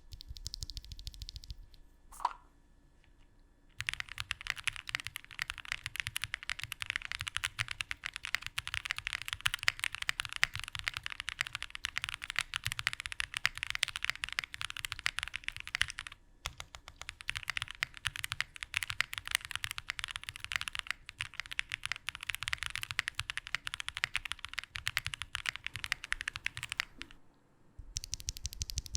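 Fast, continuous typing on an Answer Studio AS65 Final 65% mechanical keyboard, gasket-mounted with an FR4 plate and GMK keycaps: a dense run of key clacks. It breaks off briefly about halfway through, then resumes and stops a couple of seconds before the end.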